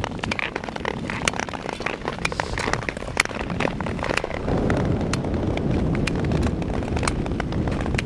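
Wind buffeting the microphone of a camera moving along the ice, a heavy low rumble that gets stronger about halfway through, with many short sharp clicks and scrapes from speed-skate blades on natural ice.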